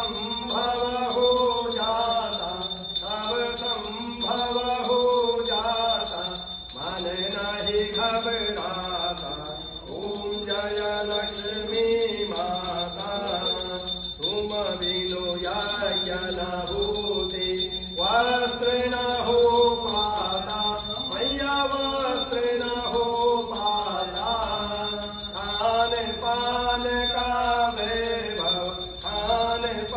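A male priest chanting havan mantras in a steady recitation, one voice in short repeated melodic phrases.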